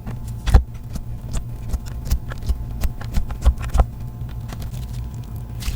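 Toothpaste slime being squished and handled, giving a run of irregular sticky clicks and pops, some sharper and louder than others.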